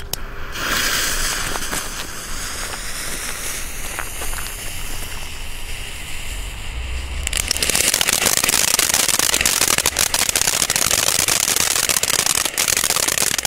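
Blue Star Gold ground fountain, a small youth firework, hissing as it catches. About seven seconds in it erupts into a loud, steady spraying hiss with fine crackling as it throws sparks.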